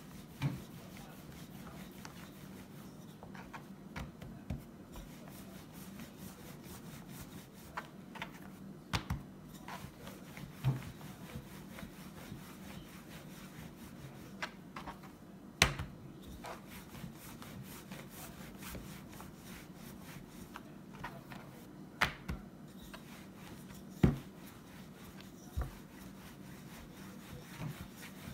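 Wooden rolling pin rolling naan dough on a floured plastic board: a soft, steady rubbing as the pin rolls back and forth, with scattered sharp knocks as the pin meets the board.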